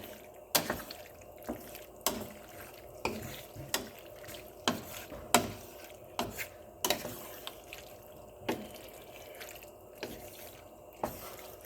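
A utensil stirring and tossing pasta in a creamy sauce in a pan: wet squelching with irregular sharp clacks of the utensil against the pan, roughly once a second.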